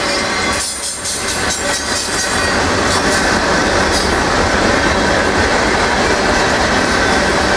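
Freight cars of a manifest train rolling past: a steady rumble and rattle of steel wheels on rail, with a run of clicks over the rail joints in the first few seconds. A steady high wheel squeal runs through.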